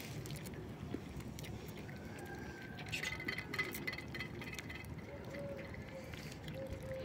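Two cats eating chunks of wet cat food from a small metal plate: chewing with small clicks and clinks against the plate, starting about three seconds in, over steady background noise.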